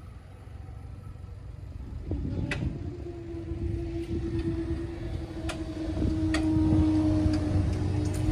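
A train approaching on the line, a low rumble growing louder. A steady hum joins about two seconds in, with scattered sharp clicks.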